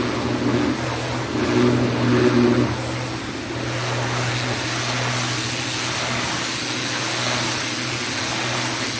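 Pressure washer running: a steady motor hum under the even hiss of the water spray, with a brief rise in the motor's tone a second or two in.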